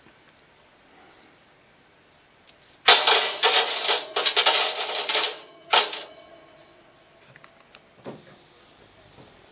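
Copper electrical contact strips with silver tips dropped by the handful onto a perforated steel sheet, clattering and jingling for about two and a half seconds. A last short clatter follows a moment later as the remaining pieces fall.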